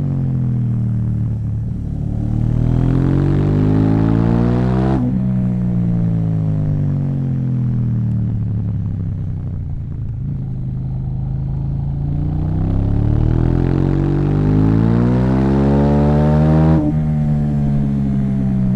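KTM 790 Duke parallel-twin engine through an Akrapovic exhaust. It runs under load with the pitch falling away and then climbing twice, and the note breaks off sharply at the top of each climb, about five seconds in and near the end.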